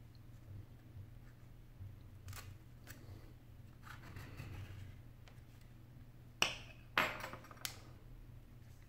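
Light clicking and scraping of a thin pry tool worked around the seam of an iPhone 8 Plus, then two sharp snaps about half a second apart and a lighter click near the end as the display's clips come free of the frame.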